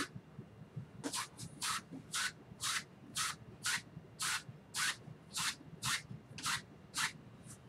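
Paintbrush swished back and forth across a stretched canvas, laying in oil paint: about a dozen short, brushy strokes at roughly two a second, starting about a second in.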